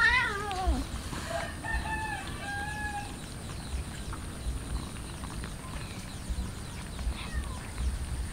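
A rooster crows once near the start, a wavering falling first note followed by a few short held notes. Under it are the faint clicks and shuffling of a crowd of cats eating rice.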